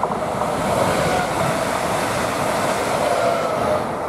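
Passenger train passing close by at speed: a steady rush of wheels on rail that swells to its loudest in the middle and eases off near the end, with a faint whine that dips slightly in pitch as it goes by.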